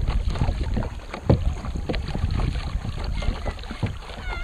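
Water slapping and splashing against the hull of a moving kayak, with wind rumbling on the microphone.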